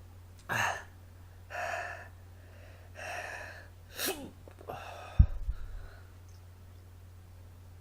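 A man breathing hard in about five sharp, noisy gasps through the mouth, his reaction to the burn of the superhot Jigsaw chillies he is eating. A single thump about five seconds in is the loudest sound.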